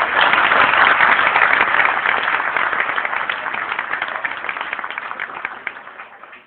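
An audience applauding, loudest in the first couple of seconds, then slowly dying away until it stops near the end.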